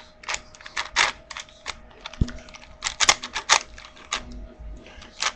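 Plastic layers of a Rubik's Cube 4x4 clicking and clacking irregularly as the cube is twisted. The owner says the cube locks up a lot when turned.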